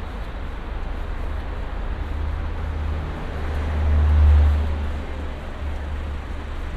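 Street traffic: a steady low rumble of road noise, with one vehicle passing close that swells to loudest about four seconds in and then fades.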